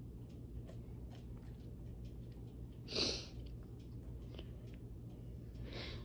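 Two short, loud sniffs, one about three seconds in and one near the end, over faint scattered clicks and a steady low hum.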